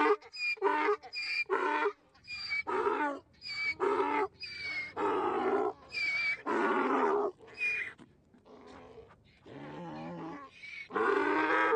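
A string of cartoon animal cries and growls, about a dozen separate calls, each lasting from a fraction of a second to about a second, with short gaps between them.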